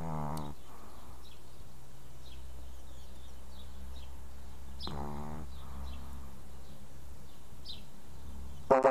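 Pekingese dog snoring: two drawn-out snores about five seconds apart, each a pitched tone that bends in pitch, then a shorter, louder snore near the end. A steady low hum runs underneath.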